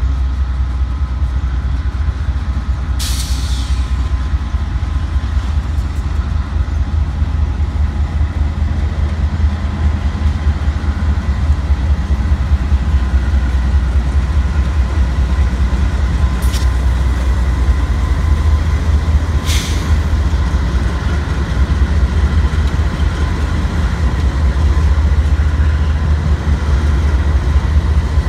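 Union Pacific GE AC4400CW diesel-electric locomotives passing slowly with a heavy, steady low engine rumble and faint steady whining tones above it. Three short hisses cut in, about three seconds in and twice a little past the middle.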